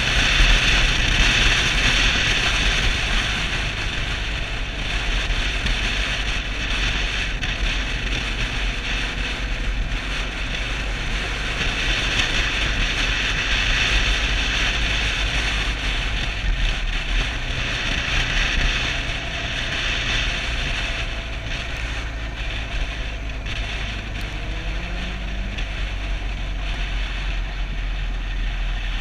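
Wind rushing over the camera microphone on a Suzuki DR650 at speed, with the bike's single-cylinder engine running steadily underneath. The engine note rises briefly near the end.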